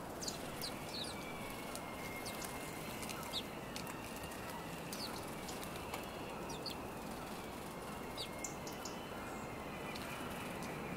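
A flock of house sparrows chirping in short, scattered calls, with the flutter of wings as birds fly to and from the feeder, over steady background noise.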